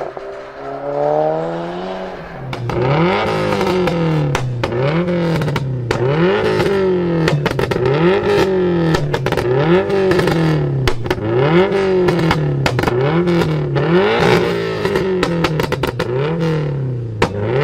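A car engine revved over and over, about once a second, its pitch climbing and falling each time, with sharp exhaust pops and crackles between the revs.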